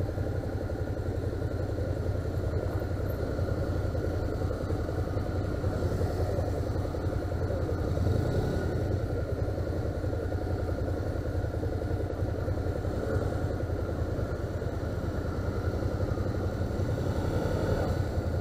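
Suzuki SV650's V-twin engine running steadily at low revs while the motorcycle rolls slowly, heard close up from the rider's seat.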